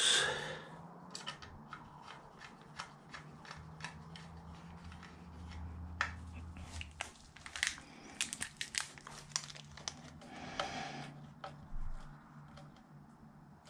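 Electrical cable being worked into a mains socket's back box, with an irregular run of small clicks, crinkles and scrapes from the handling. The clicks are busiest about eight to ten seconds in.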